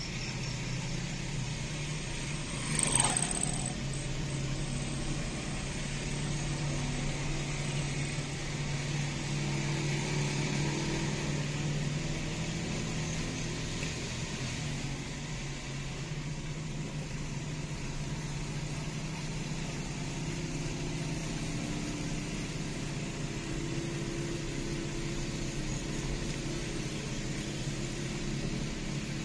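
Steady low engine hum with road and tyre noise, heard from inside the cabin of a car being towed behind a motorcycle cart. About three seconds in there is one brief louder sound with a quick falling sweep.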